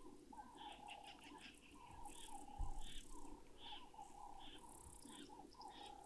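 Faint outdoor wildlife ambience at a waterhole: repeated short bird calls and insect chirps. There is one brief low thump a little before the middle.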